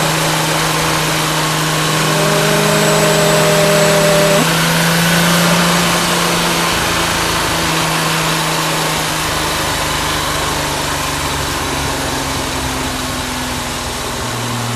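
Venturi Atlantique 300's turbocharged V6 running at a steady speed on the road, its pitch holding level. Heard from a camera mounted on the outside of the car, under a heavy rush of wind and road noise.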